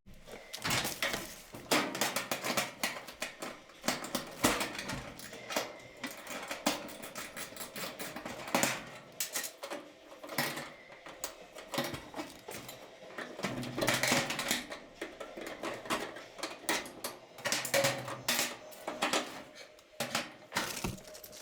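Tools and metal parts of a clothes dryer clinking and clattering irregularly as it is worked on.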